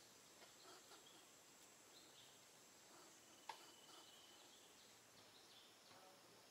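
Near silence: faint outdoor ambience, with one short click about three and a half seconds in.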